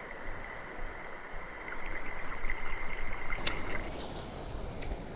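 River water flowing as a steady rushing noise, with a thin steady high tone that stops near the end and a single sharp click partway through.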